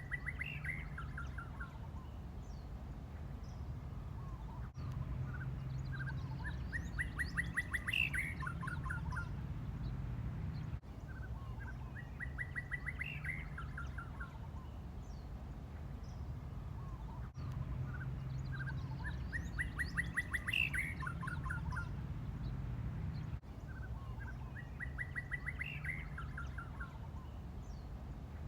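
An unidentified bird's call phrase, repeated about every six seconds: a fast run of short notes that climbs to a high peak and drops away. A steady low hum runs beneath it.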